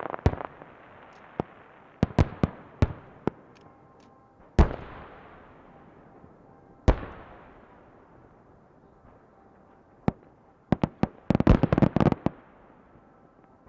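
Aerial firework shells bursting in a display: scattered sharp bangs, two big single booms a few seconds in that each fade away in a long echo, and a rapid run of crackling pops near the end.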